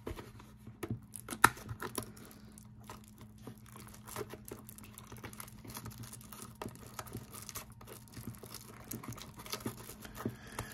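Fingers picking, scratching and crinkling at the tight plastic shrink-wrap on a trading card box, a run of small irregular ticks and crackles. A sharper tap stands out about a second and a half in.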